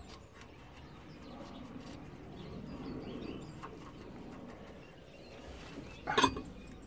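A quiet stretch of hand work on a new rear shock absorber's top mount, with a dove cooing faintly in the background. About six seconds in comes one short metallic clink of tools or mounting hardware.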